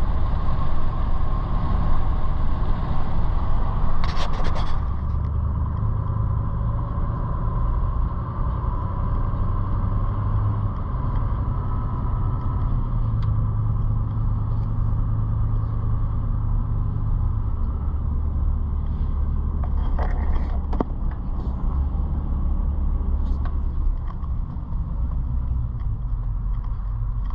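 Car driving, heard from inside the cabin: a steady low rumble of engine and tyres on the road that shifts in pitch with speed. There is a short rattle about four seconds in and a few sharp clicks around twenty seconds.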